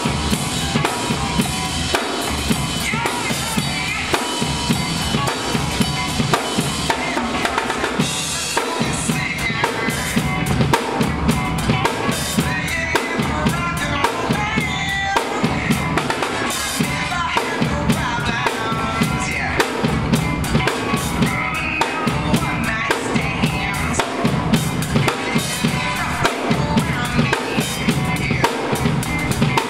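Acoustic drum kit played with sticks in a busy, continuous groove: kick drum, snare and cymbals struck in rapid succession.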